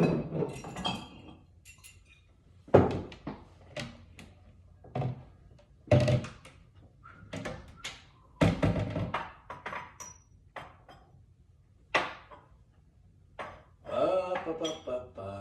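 Bottles and glasses being handled on a tabletop: a series of separate thunks and knocks with quiet gaps between, and a short high ringing tone about ten seconds in.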